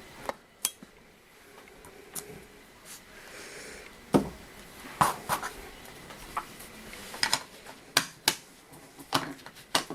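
About a dozen irregular sharp clicks and light knocks of hard craft tools and a stamp on a tabletop, while a rubber-stamped sentiment is inked and pressed onto card.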